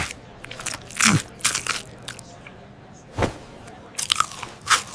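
A series of short, irregular crunching sounds, about ten in all, with a lower thud a little past three seconds in.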